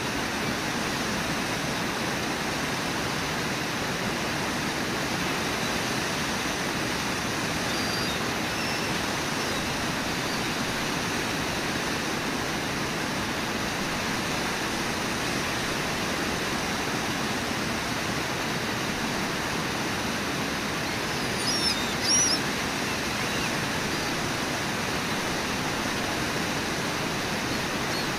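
Steady rushing roar of a waterfall and its white-water rapids (Brooks Falls), unchanging throughout. A brief high chirp cuts in about three quarters of the way through.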